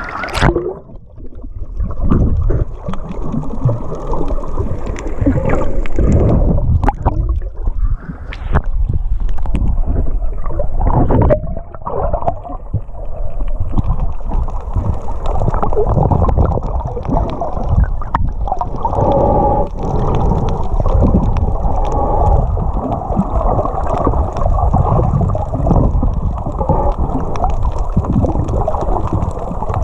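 Muffled water sloshing and gurgling around a camera in the sea during snorkelling, dull and continuous, with irregular surges and a few sharp knocks.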